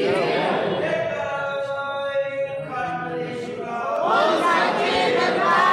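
Voices singing an aarti chant together without instruments, in long held notes, getting louder about four seconds in.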